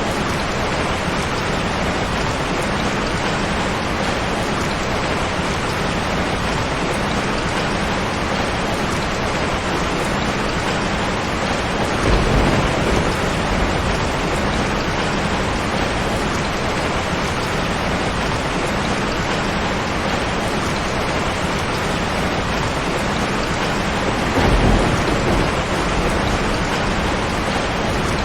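Heavy rain falling steadily on a tin roof, with two short, low rumbles of thunder: one midway and one near the end.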